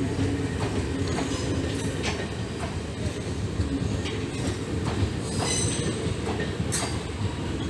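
Indian Railways passenger coaches rolling past on a departing train: a steady rumble with the wheels clicking irregularly over rail joints, and a brief high wheel squeal a little past halfway.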